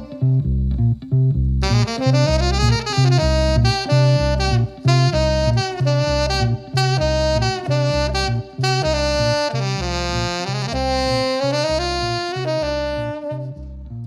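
Saxophone playing an instrumental melodic line over a band backing with a steady, even bass pulse. The phrase ends on longer held notes, with the level falling off near the end.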